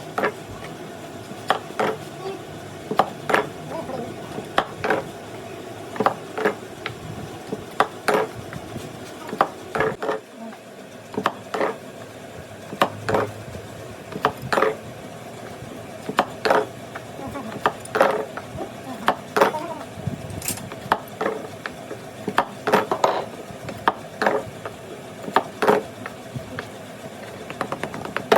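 Sharp clicks and knocks, irregular at about one or two a second, over a faint steady hum.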